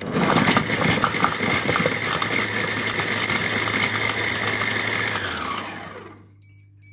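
Compact Cook Pro multicooker's blade motor chopping shallots at speed 5: a loud steady whine for about five seconds, with clicks of the pieces hitting the bowl early on, then it spins down with a falling pitch. A few faint short beeps follow near the end.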